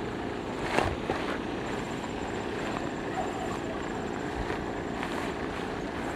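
Steady drone of distant motor noise, with two light knocks about a second in.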